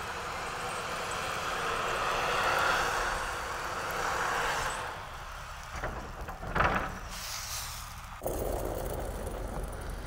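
Wheel loader on tire chains working snow: steady heavy-machine noise that swells and eases, then a brief loud burst with a hiss about two-thirds of the way in. The sound changes abruptly near the end.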